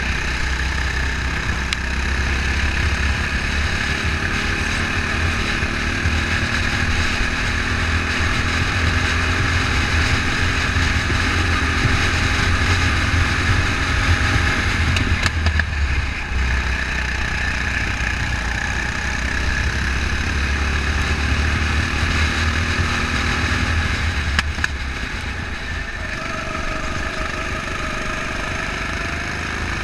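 Onboard sound of a go-kart's small engine running hard at racing speed, its pitch sliding up and down through the corners and climbing near the end, over a steady heavy low rumble.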